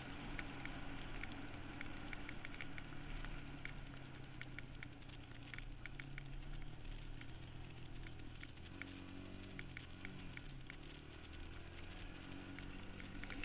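Suzuki QuadRunner 160 ATV's single-cylinder engine running under way, its pitch dipping and rising again about two-thirds of the way through as the engine speed changes. Scattered sharp ticks sound over the engine throughout.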